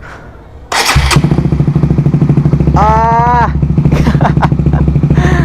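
Honda CBR150R single-cylinder four-stroke engine starting up about a second in, then idling with an even, rapid beat through an Akrapovic muffler with its silencer insert removed.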